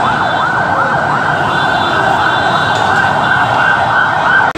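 Ambulance siren sounding in a fast, repeating up-and-down wail of about three sweeps a second. It cuts off abruptly near the end.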